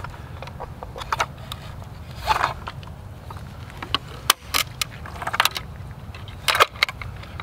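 A crossbow being cocked by hand with a foot in its stirrup: scattered clicks and scrapes of the string and stock, with a sharp click about four seconds in and a pair of louder clicks near the end.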